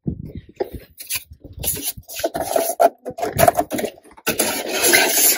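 Foam teeth being cut off a SmartBlock ICF expanded-polystyrene block: a run of irregular scratchy, rasping strokes, then a louder continuous hiss about four seconds in.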